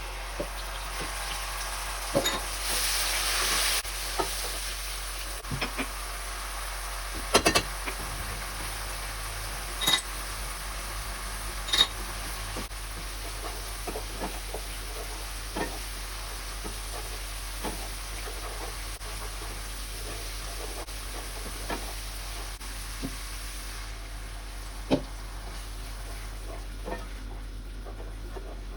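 Food sizzling in a cooking pan while being stirred, a steady frying hiss with a louder surge about three seconds in. Sharp clicks of the spoon knocking the pan come now and then.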